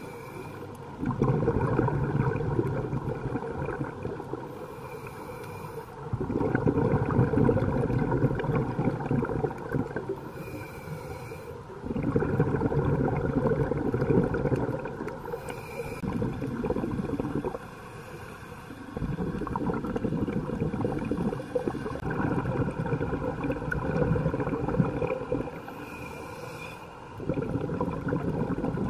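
Scuba diver breathing through a regulator underwater: a short hiss on each inhale, then a long bubbling rumble of exhaled air, about one breath every six seconds.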